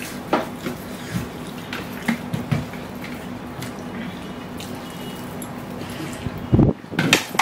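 Close-up eating sounds of instant noodles eaten by hand: scattered wet smacks and clicks of chewing and slurping. There is a loud low thump about six and a half seconds in.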